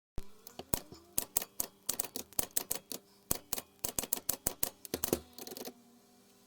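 A rapid, irregular series of sharp clicks, some with a short ringing tone, like typewriter keys, ending in a brief hiss about five and a half seconds in.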